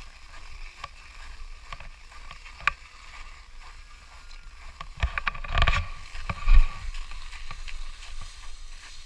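Skis sliding over packed snow with wind rumbling on the camera's microphone, and scattered clicks. A cluster of knocks and thumps comes about five to six and a half seconds in, the loudest a low thump near the end of it.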